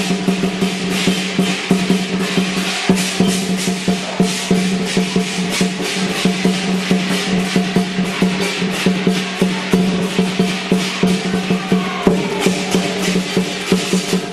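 Lion dance percussion: a large drum beaten in fast, continuous rolls and rhythms with cymbals clashing throughout.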